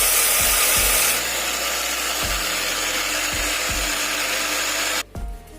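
Electric grinder running at full speed, grinding roasted urad dal into powder: a loud, even whirring that eases slightly about a second in and cuts off abruptly near the end.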